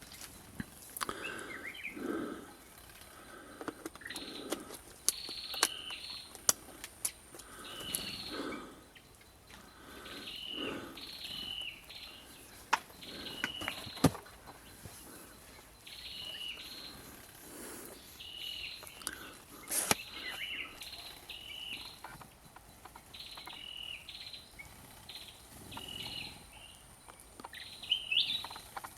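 Wild birds calling at a bird hide: a short, high, two-part call repeated over and over, with other chirps mixed in and a few sharp clicks.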